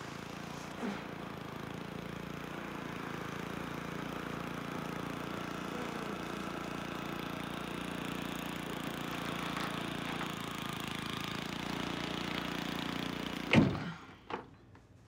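A steady engine-like motor hum that grows slowly louder, cut off near the end by one sharp knock, after which it goes quiet.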